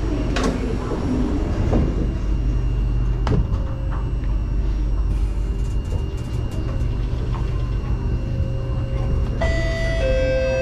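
Singapore MRT train running, heard from inside the carriage as it pulls away from the station: a steady low rumble, with a knock about half a second in as the doors shut. Near the end a two-note tone sounds, the second note lower.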